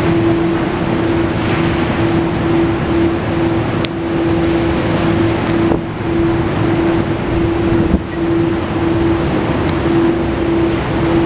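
Kawasaki VN1500 Classic's V-twin engine idling steadily on a lift, with a steady hum over it and a few light clicks.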